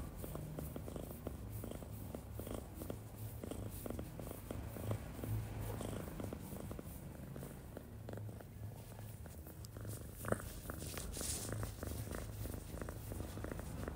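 Domestic cat purring steadily with a low, pulsing rumble while its back is scratched, with the rustle of fingers in its fur over it. There is a single sharp click about ten seconds in.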